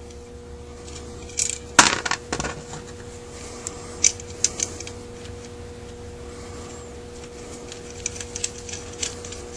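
Metal tools and small parts clinking and tapping on a workbench, with one louder clank that rings briefly about two seconds in and lighter ticks after it, over a faint steady hum.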